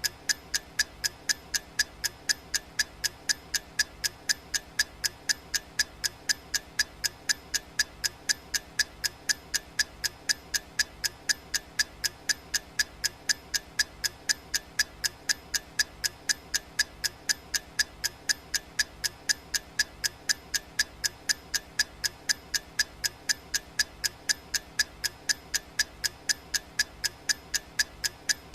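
Ticking sound effect of a countdown timer, like a clock tick. The ticks are sharp, evenly spaced and steady, a couple or so each second.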